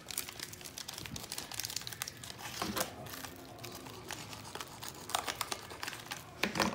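Clear plastic wrapping crinkling and crackling in irregular bursts as a sealed Vietnam-era ration packet is handled and slit open with a folding knife.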